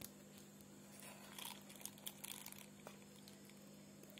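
Faint crinkling and rustling of a thin plastic bag lined in a tumbler as thick batter is spooned into it, mostly in the middle, over a faint steady hum.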